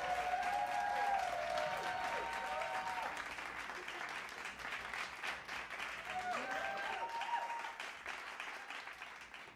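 Labrador retrievers whining in long, high, wavering tones in the first three seconds and again about six seconds in, over a dense crackling, clicking noise that fades out near the end.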